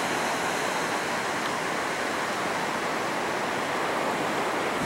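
Steady rushing wash of ocean surf breaking along a sandy beach.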